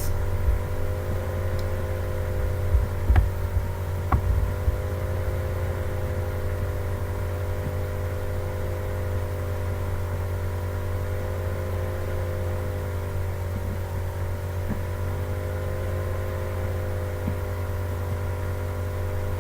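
Steady machine hum with a few faint clicks about three and four seconds in.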